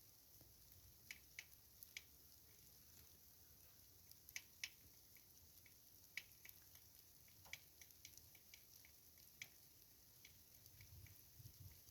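Faint, irregular small clicks over near silence: a caterpillar chewing on a fresh mulberry.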